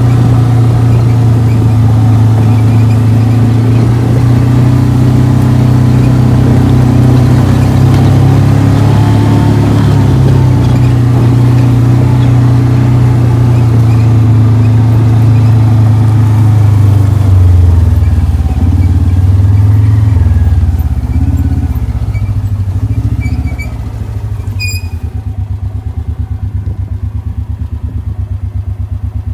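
A vehicle's engine running steadily while driving along. It drops off after about two-thirds of the clip and settles into an even, pulsing idle near the end.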